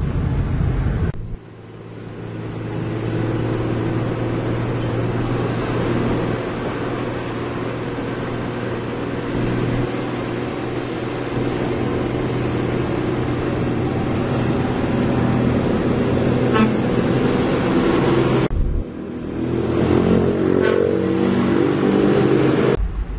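Street traffic dominated by a truck's diesel engine running steadily, with motorbikes and cars passing. The sound changes abruptly about a second in and again near the end.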